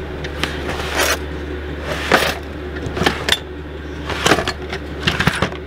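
Plastic storage drawers being pulled open and pushed shut, with a series of short scrapes and rattles from the drawers and their contents, over a steady low hum.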